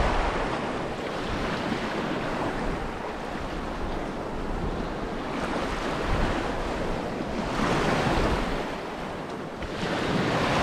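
Sea waves washing against a rocky shoreline, the noise swelling and easing every few seconds, with wind buffeting the microphone.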